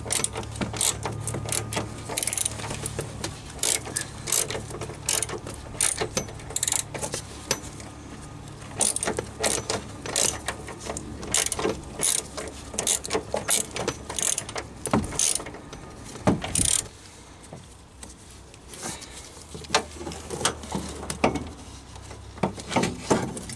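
Socket ratchet wrench clicking in irregular runs while undoing a rear shock absorber's top mounting bolt that is held with thread-locker.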